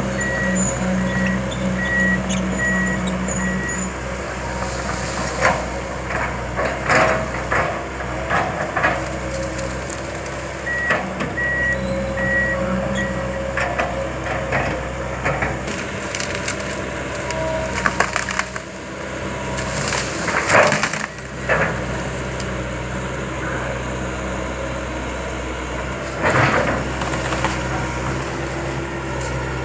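Komatsu PC200LC tracked excavator's diesel engine running steadily while wood cracks and splinters with sharp knocks as tree stumps are pulled out; the loudest crack comes about two-thirds of the way through. A backup alarm beeps in spells.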